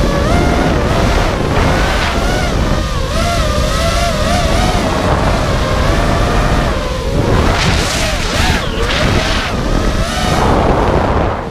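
Onboard audio of a 5-inch FPV quadcopter's T-Motor F40 2400KV motors and tri-blade propellers, a whine whose pitch rises and falls constantly with the throttle, over a heavy rumble of wind and prop wash. About seven seconds in, hard throttle punches bring louder rushing surges.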